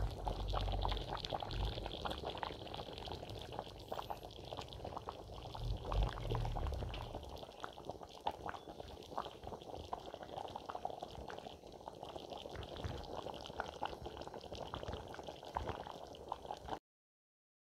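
Thick pumpkin-leaf stew, thickened with peanut butter, bubbling in an aluminium pot, with many small pops and plops. A low rumble runs under it for the first several seconds. The sound cuts off suddenly near the end.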